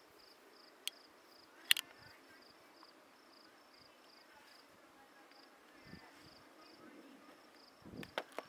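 Faint insect chirping, an even, pulsing high trill that keeps going. Sharp clicks break in twice in the first two seconds, the second one loudest, and a couple more come near the end.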